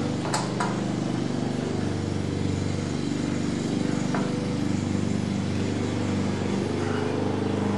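A steady low machine hum, with a few light clicks of a hand tool working a bolt, just after the start and again about four seconds in.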